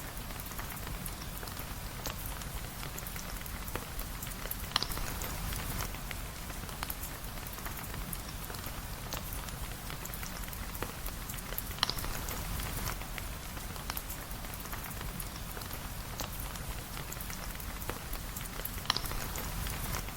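Steady rain with a dense patter of fine drops over a low rumble, broken by three sharper pops about seven seconds apart.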